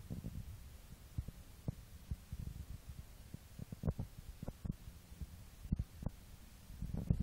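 Domestic cat purring close to the phone: a low, throbbing rumble that swells and eases, with a few short knocks and rubs.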